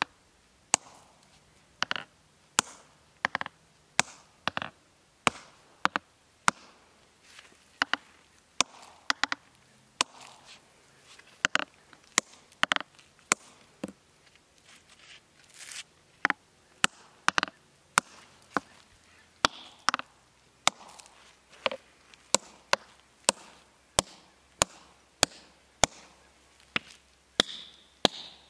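A hand hammer striking a row of forged steel wedges set into a stone block, driving them in to split the stone: an even series of sharp, ringing strikes, about one and a half a second.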